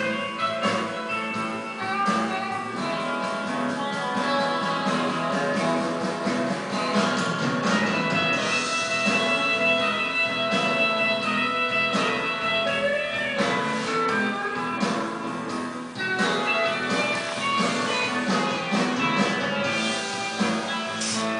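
Background instrumental music led by guitar, with a steady beat.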